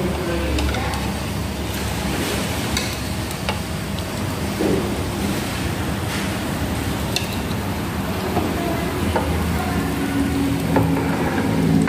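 Steady rushing background noise with a low hum, with a few light clinks of a ladle against a plate scattered through it.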